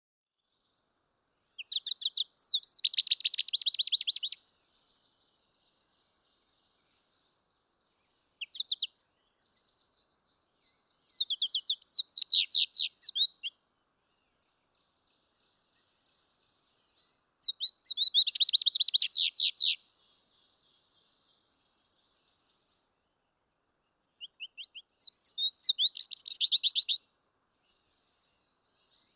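A songbird singing in repeated phrases of rapid, high-pitched trilled notes, each phrase two to three seconds long and coming about every six to seven seconds, with one short fragment between the first two.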